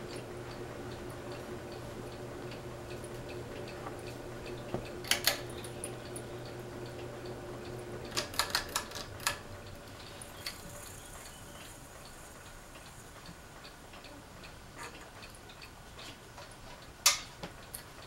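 Fasco Vanity Fair ceiling fan motor running with a steady hum and faint regular ticking. The hum cuts off about eight seconds in amid a quick run of switch clicks, and there is a single sharp click near the end.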